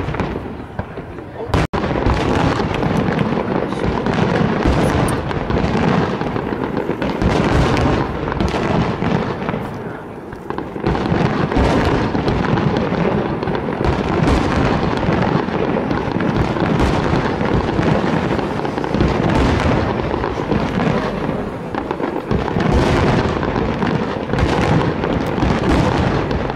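Aerial fireworks display: a dense, continuous barrage of shell bursts and crackle, many bangs in quick succession with hardly a pause.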